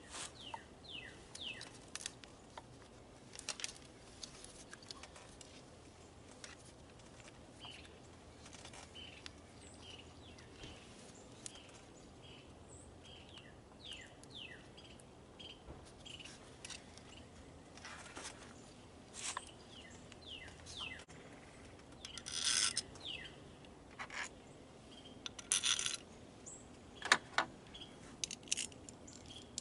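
Sharp clicks, rattles and scrapes of a plastic ignition coil assembly being handled and worked down over the spark plugs of a 1.4L engine, with several louder clicks in the second half. Short high falling chirps of small birds run underneath.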